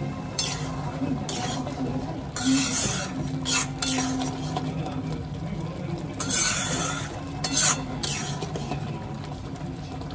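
A spoon scraping and stirring through a pot of tarka, chana dal cooked with chicken, in uneven strokes over a steady low hum.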